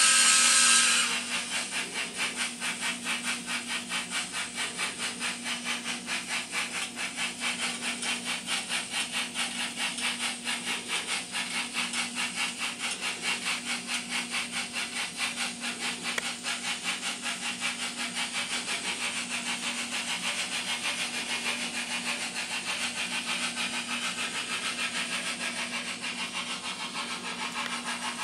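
Steam locomotive sounds from an N scale 4-6-2 Pacific's LokSound Micro decoder, played through the model's small speaker: a chime-like whistle blast that cuts off about a second in, then steady exhaust chuffing at about three chuffs a second over a low hum.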